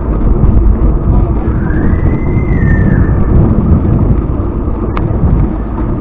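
Steady wind noise buffeting the microphone while cycling, low and loud throughout. A faint whine rises and falls about two seconds in, and a single sharp click comes near the end.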